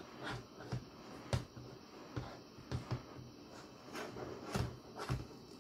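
Irregular light clicks and knocks of a large hollow plastic Iron Man action figure being handled, its arms and legs moved and the figure shifted about in the hands.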